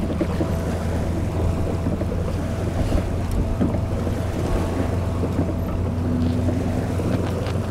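Wind buffeting the microphone: a steady, heavy low rumble with rustling noise over it.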